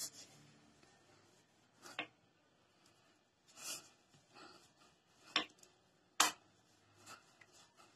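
Wooden rolling pin and hands working a ball of paratha dough on a smooth counter: faint rubbing and about half a dozen soft, scattered knocks as the pin and hands touch down.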